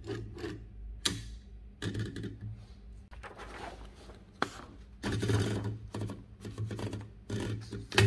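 A sheet of paper being fed into a 1939 Bar-Lock typewriter's carriage as the platen is turned by its knob: paper rustling and rubbing against the roller, with a few sharp mechanical clicks.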